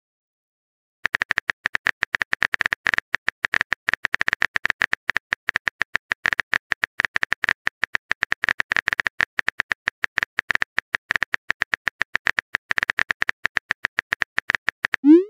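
Keyboard typing sound effect: a fast, dense run of small clicks starting about a second in and going on for some fourteen seconds, ending with a short upward-sliding tone as the message is sent.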